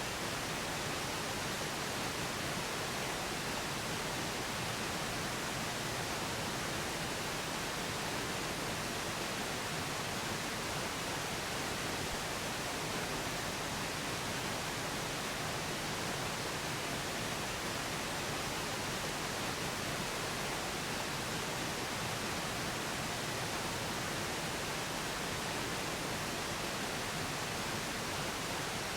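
Steady pink noise, an even hiss with no change throughout.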